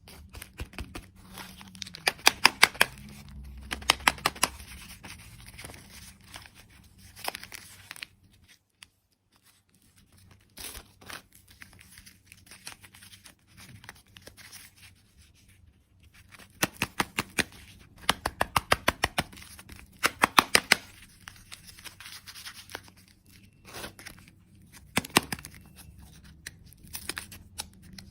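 Candy packaging being torn open and crinkled by hand: runs of rapid, sharp crackling, loudest about two seconds in and again around seventeen to twenty seconds in, with quieter rustling between.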